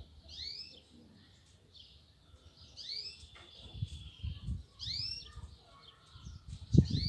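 Lovebirds giving short, curving chirps, spaced a second or two apart, with one longer thin whistle in the middle. A few low thumps sound underneath, the loudest shortly before the end.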